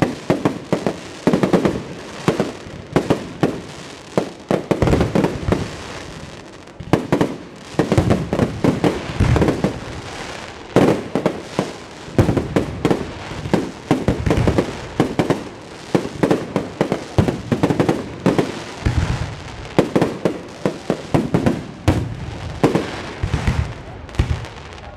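Fireworks display: aerial shells bursting overhead in a rapid, unbroken barrage of sharp bangs, several a second.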